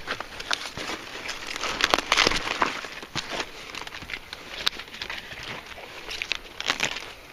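Large romanesco cauliflower leaves rustling and crackling as they are handled and pushed aside close to the microphone, with irregular sharp snaps and clicks.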